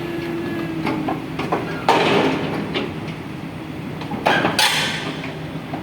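Cat excavator's diesel engine running with a steady low rumble while heavy metal clanks and knocks ring out about two seconds in and again past four seconds. A steady whine fades out about a second in.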